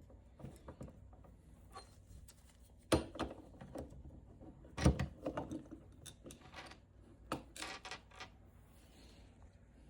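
Parts of a hot lather machine being handled and fitted back together by hand: scattered light clicks and clatter, with two louder knocks about three and five seconds in.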